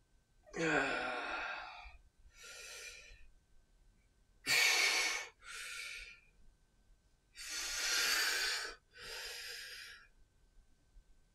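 A man breathing hard through his mouth while swinging a clubbell: three rounds of loud breaths about three and a half seconds apart, each a long breath followed by a shorter, quieter one.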